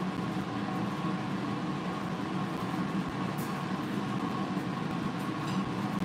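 Steady mechanical hum and hiss holding a faint constant whine, with a couple of faint ticks.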